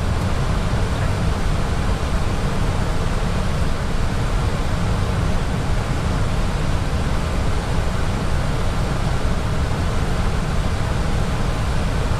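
Steady cabin noise on the flight deck of an Airbus A320 in descent: a constant rushing hiss over a strong low rumble, with no breaks or changes.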